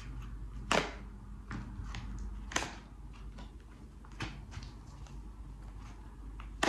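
Tarot cards being handled and laid on a tabletop: a handful of short card snaps and taps, the loudest about a second in.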